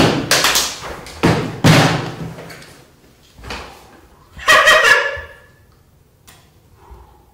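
Thumps and rustling as a man drops into a padded office chair and swings his feet up onto the desk, with a brief pitched squeak about four and a half seconds in as he leans back.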